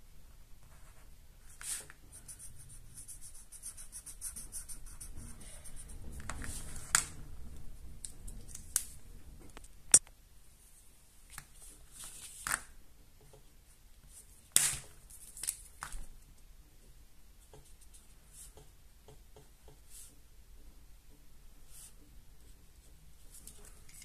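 Felt-tip pen rubbing on paper in short scratchy strokes while colouring in, with a few sharp clicks and taps, the loudest about ten seconds in and again about fifteen seconds in.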